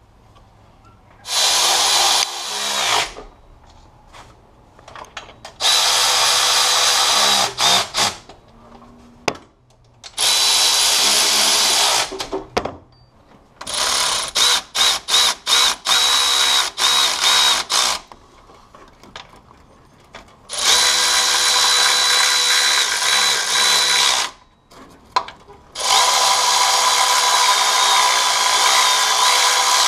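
Cordless electric ratchet running bolts into a 5.7 Hemi's timing cover, driven in about six runs of a few seconds each with a steady high whine. In one stretch the trigger is blipped in quick short stops and starts.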